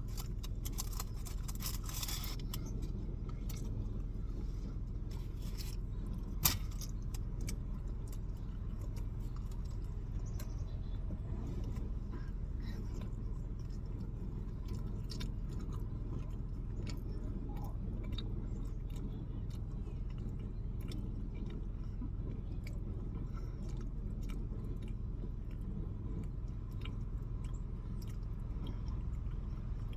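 Someone eating: scattered small clicks, crunches and rustles of food and utensils over a steady low rumble. There is a brief jangling rustle about two seconds in and one sharp click a few seconds later.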